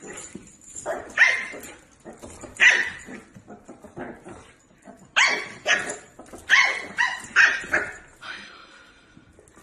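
Dog barking in short, sharp barks, in groups: two about a second in, one near three seconds, then a quicker run of several between about five and eight seconds in.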